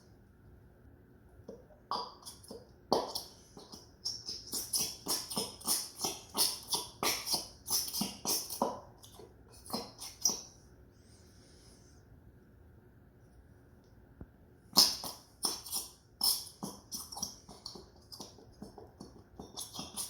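Plastic bottle of thick metallic glue being shaken and squeezed by hand: a run of quick clicks and knocks, about two a second, in two bouts with a pause in between. The glue is slow to come out.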